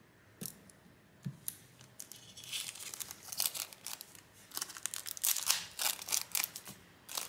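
A few light clicks, then a clear plastic parts bag crinkling and rustling as it is handled, in dense crackles from about two and a half seconds in.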